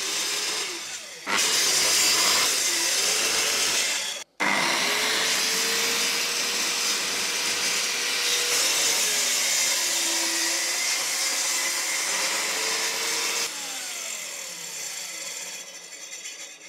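Festool plunge-cut track saw running along its guide rail and cutting through a kitchen worktop. Its motor note dips and recovers as it is pushed through the cut. Near the end the pitch falls and the sound fades.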